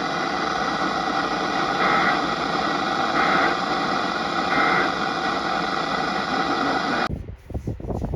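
Hissy radio reception carrying three short data bursts of the Emergency Alert System end-of-message code, about a second apart, which mark the end of an alert. The hiss cuts off suddenly near the end.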